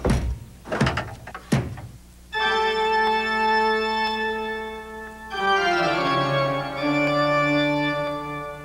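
Pipe organ playing sustained chords. The first chord is held for about three seconds, then the harmony moves, with the bass stepping down, into a second held chord that fades away near the end.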